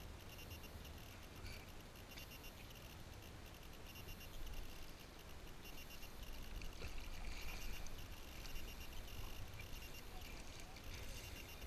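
Faint water trickling and lapping along a kayak hull as the kayak moves through the sea, a little louder in the second half.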